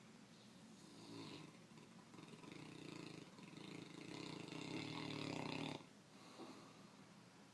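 One long snore that builds over about five seconds and cuts off suddenly, followed by a short lull before the next breath.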